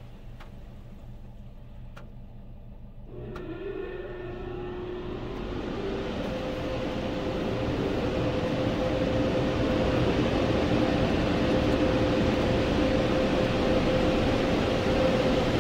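Car-wash air dryer blowers spinning up about three seconds in: a rising whine that settles into a steady whine over a rush of blown air, growing louder and then holding. Before that, only a low rumble.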